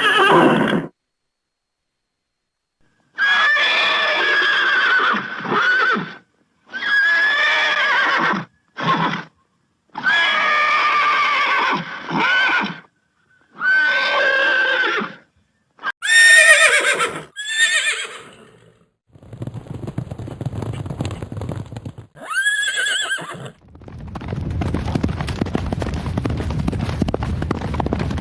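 Horse whinnies, about ten separate calls of a second or two each, cut one after another with silent gaps between them. About two-thirds of the way through, hoofbeats come in with one more whinny over them, and near the end the hooves run on steadily at a gallop.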